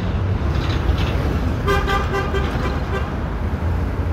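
Steady rumble of city street traffic, with a vehicle horn tooting in a quick series of short beeps for about a second midway.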